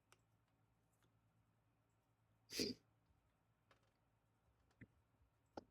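Near silence with a few faint clicks of small fork parts being handled, and one short sharp sniff about two and a half seconds in.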